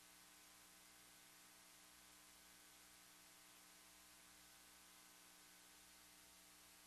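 Near silence: a faint steady hiss with a low, even hum.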